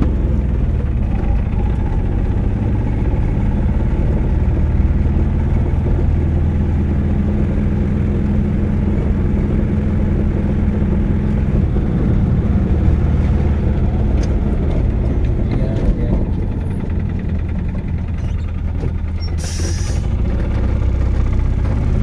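Motorcycle engine running at a steady cruising speed, with wind and road noise. A brief hiss comes near the end.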